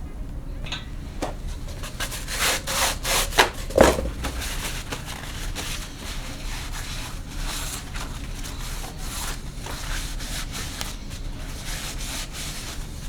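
Engine parts being handled during a rotary engine teardown: irregular scraping and rubbing strokes, busiest in the first few seconds, with one sharp knock about four seconds in.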